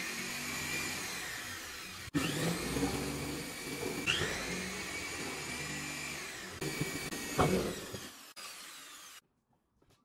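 Corded electric drill boring holes through the wooden panel of a pine cabinet. Its motor whine rises as it spins up, several times over, and the running stops shortly before the end.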